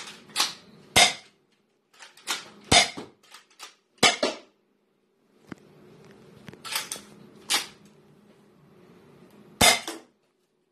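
Dart Zone Pro MK2 foam-dart pistol being primed and fired: a string of sharp snaps and clacks, about a dozen at irregular spacing, the last near the end.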